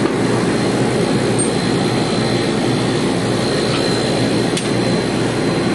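Steady machinery noise: a constant rushing drone with a faint high whine above it, and a couple of faint clicks in the second half.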